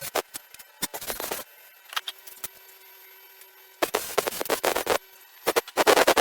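Wood being scraped or rubbed in short bursts, each about half a second to a second long, the kind of noise made by hand-working or handling lumber.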